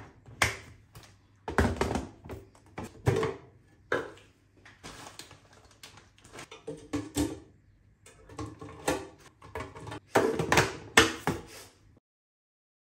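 Clear plastic airtight pasta canisters being handled on a stone countertop: lids clicked and pressed shut and containers set down with light knocks, with a plastic zip-lock bag of dried instant noodles crinkling in between.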